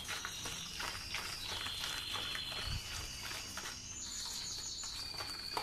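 Wire whisk beating cake batter in a stainless steel bowl: quick, irregular clicks and scrapes of the wires against the metal, with a thin, steady high tone behind them.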